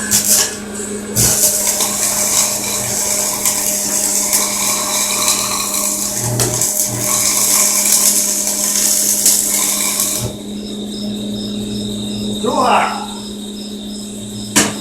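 Stick welding: the arc crackles and sizzles steadily for about nine seconds, then stops abruptly, leaving a steady low hum.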